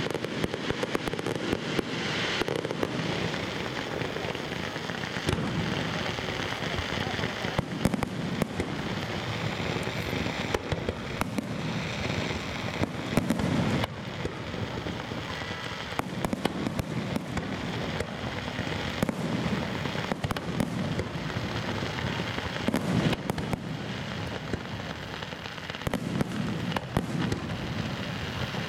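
Fireworks display going off continuously: dense crackling and popping, with many sharp bangs of shells bursting at irregular intervals.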